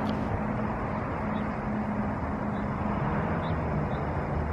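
Steady street traffic noise with a low engine hum from a vehicle, and a few faint high chirps now and then.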